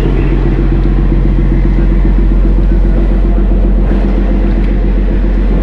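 Fishing trawler's inboard diesel engine running steadily under way, a loud constant low drone with a fixed pitch.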